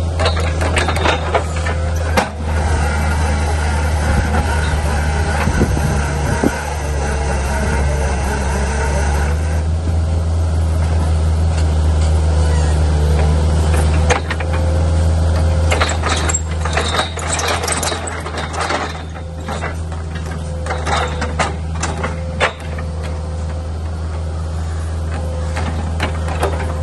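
Diesel engine of a compact track loader running steadily as it drives a belling-bucket drill tool into a footing hole. Sharp clanks and knocks come in the second half.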